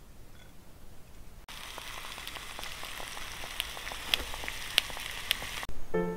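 Just-baked, cheese-topped stuffed zucchini sizzling in its glass dish: a steady hiss with scattered crackles and pops that starts suddenly about a second and a half in. Music begins right at the end.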